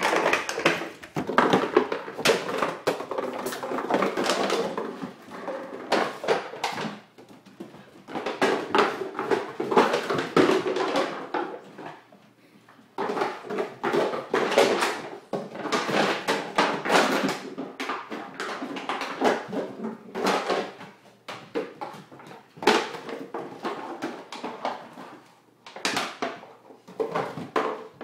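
Plastic soda bottle with ice cubes inside, rattling, crackling and clattering across a hardwood floor as a puppy chews and shoves it, in a dense run of clicks and knocks with two short pauses.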